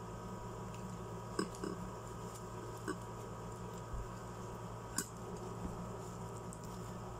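Quiet eating sounds over a steady low room hum: a few short, soft clicks and taps, the sharpest about five seconds in, as flatbread is chewed and handled in a steel pot.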